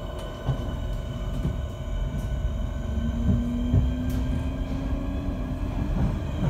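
Class 465 Networker electric multiple unit, with Hitachi IGBT inverters driving Brush traction motors, heard from inside the carriage as it pulls away: a steady electric hum of several fixed tones over a low rumble. From about halfway through, a lower tone slowly rises in pitch as the train gathers speed.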